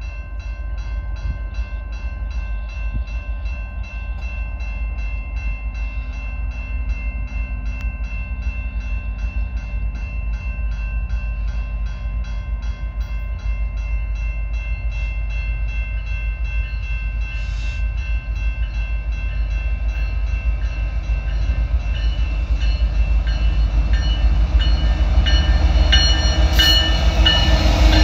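Level-crossing warning bell ringing in fast, even strokes as a CN freight train approaches. The deep rumble of its EMD SD70M-2 and GE ES44DC diesel locomotives grows steadily louder, and wheel and rail noise builds near the end.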